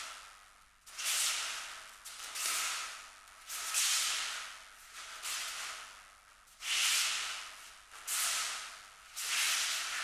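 Feet sliding and pivoting on the training mat during aikido tai sabaki footwork drills: a series of hissing swishes, about one every second and a quarter, each starting sharply and fading out.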